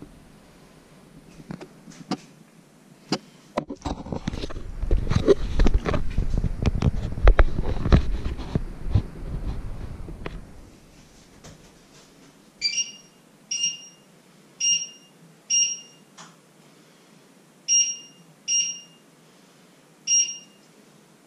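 Close handling noise of the camera, with rumbling and knocks, for several seconds, then seven short high electronic beeps about a second apart, with a longer gap after the fourth.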